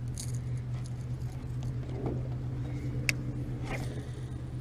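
Steady low hum of a small boat's motor, with a few short clicks over it, the sharpest about three seconds in.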